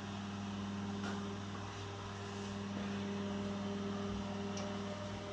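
Steady electric hum of a running egg incubator, with a few faint clicks.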